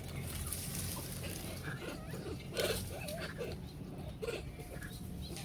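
Monkeys making several short squeaky calls that bend in pitch, most of them bunched around the middle, over a steady low hum.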